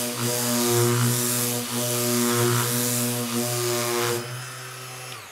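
Electric power tool motor running with a steady drone and a loud whirring hiss; the hiss drops away about four seconds in and the drone fades as the motor winds down.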